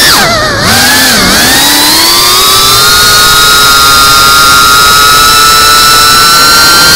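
FPV cinewhoop drone's brushless motors and propellers whining, recorded by the onboard camera. The pitch swoops up and down with quick throttle changes for about the first second, then rises and holds a high, steady whine under sustained throttle as the drone climbs.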